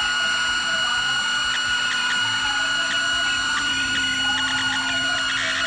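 Experimental electronic noise remix of a live rock recording: several steady high-pitched tones held over a dense hiss and a low drone, with scattered crackling clicks that grow denser near the end.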